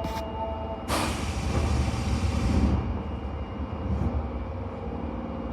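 Compressed air hissing out of a Tanimachi Line 22-series subway car, starting suddenly about a second in and fading away over about two seconds, over the low rumble of the standing train.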